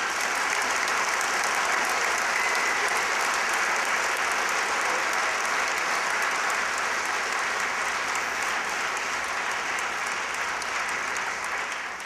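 Audience applauding steadily as a dance performance ends, easing slightly near the end.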